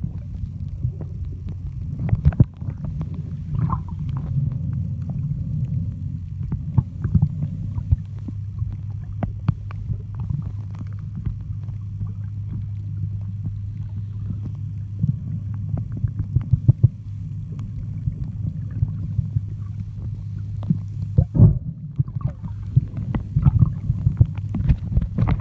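Muffled underwater sound picked up by a camera held beneath the surface: a steady low hum with scattered clicks and taps throughout, and a few louder knocks, one about two and a half seconds in and another around twenty-one seconds.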